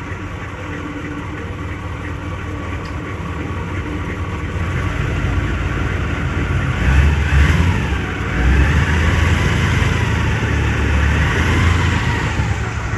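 Airboat engine and propeller running, growing louder partway through as it revs up, the pitch rising and falling in the second half.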